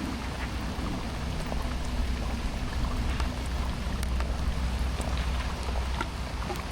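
Steady rain falling, with scattered individual drops ticking sharply, over a low steady rumble.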